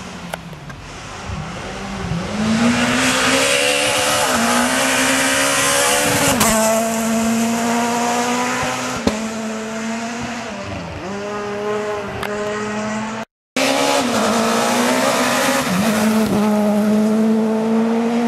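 Rally car engine at full throttle, the revs climbing and then dropping sharply at each gear change as it comes along the stage. There is a brief break in the sound about two-thirds of the way through, after which the engine is heard pulling through the gears again.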